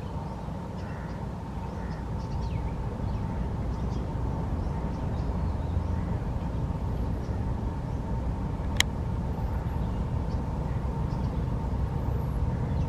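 Outdoor background noise: a steady low rumble with a faint steady hum, scattered faint high chirps, and one sharp click about nine seconds in.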